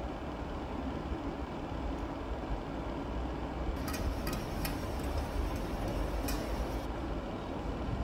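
Cardboard boxes and packing being handled and shifted, with a stretch of crackling and a few sharp clicks from about four to seven seconds in, over a steady low rumble.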